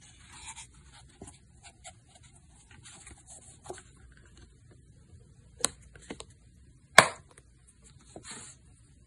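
IWC leather watch travel case handled: soft leather rubbing and small ticks as it is turned and its lid opened, then two sharp clicks as the lid is pressed shut on its metal snap stud, the second, about seven seconds in, the loudest.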